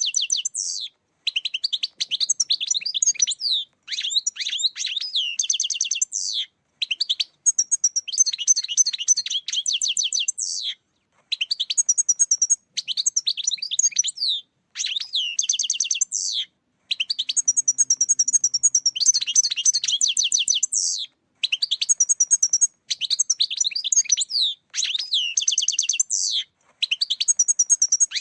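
European goldfinch song: rapid, twittering phrases of one to four seconds each, separated by brief silent gaps. This is a goldfinch lure recording of the kind played to attract goldfinches for catching.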